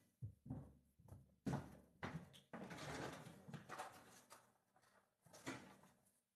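Faint household handling sounds in a small kitchen: several knocks and clicks, a door opening and closing, and a stretch of rustling in the middle.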